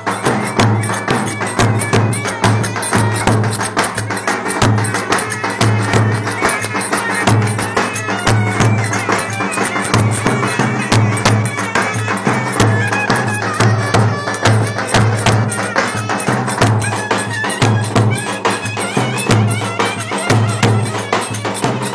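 Turkish wedding dance music with two clarinets playing a wavering, reedy melody over a steady drum beat.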